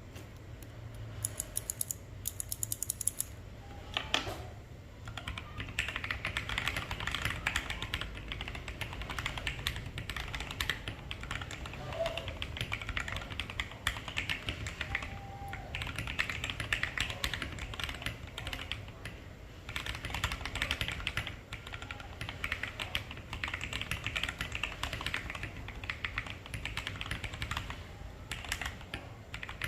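Typing sound test on a mechanical keyboard fitted with blank KAT-profile PBT keycaps. A few scattered keystrokes at first, then fast runs of key clacks broken by short pauses.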